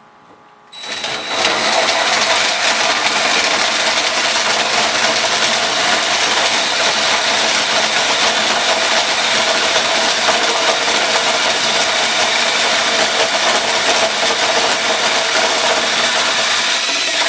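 Power drill running a hole saw, cutting steadily through a wooden door and template board to enlarge the door handle hole. It starts about a second in and stops abruptly at the end.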